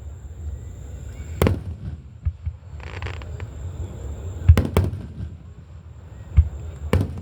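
Aerial fireworks shells bursting, about seven sharp booms at uneven gaps of a second or two, over a low steady rumble.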